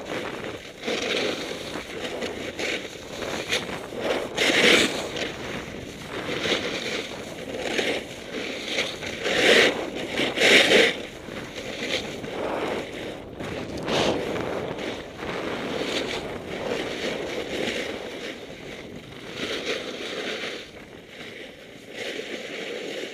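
Snowboard scraping and hissing over packed snow, in repeated surges as the board's edge bites on each turn.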